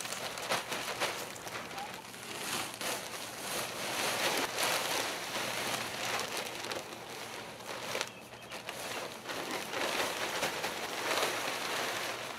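Bagged garden soil poured out of plastic bags onto a pile, with the bags crinkling: a rushing hiss that swells and eases, dropping away briefly about eight seconds in.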